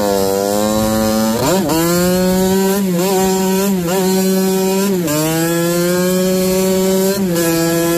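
1989 Kawasaki KX80's single-cylinder two-stroke engine running at high revs while the bike is ridden, a steady high note whose pitch dips briefly and picks back up about five times.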